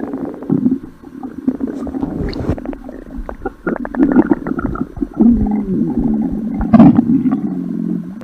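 Stomach growling sound effect: a run of low rumbles and bubbly gurgles, with longer wavering growls about five seconds in and again near the end.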